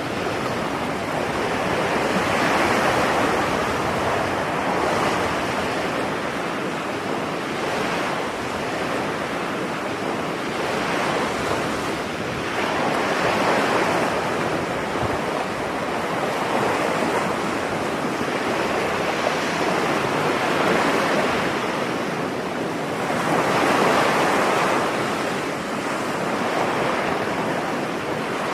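Ocean waves breaking on a beach, each swell of surf rising and washing back every few seconds, with steady wind beneath.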